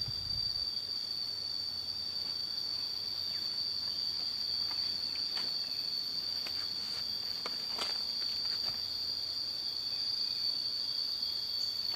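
Steady, high-pitched drone of insects, with a few faint clicks and rustles of footsteps through leaf litter.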